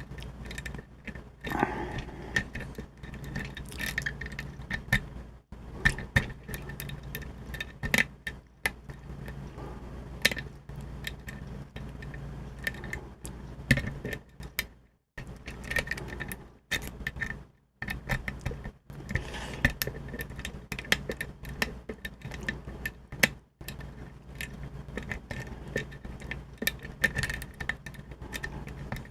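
Diamond lock pick working the pins of a small Ilco mortise cylinder under a tension wrench: irregular little metal clicks and scrapes, with a few pauses, over a steady low hum.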